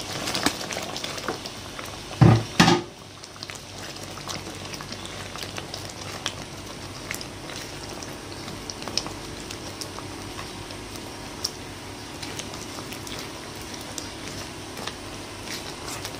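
Thick chilli sambal with giant freshwater prawns bubbling and popping as it simmers in a pan, stirred with a spatula. Two loud knocks come close together about two seconds in.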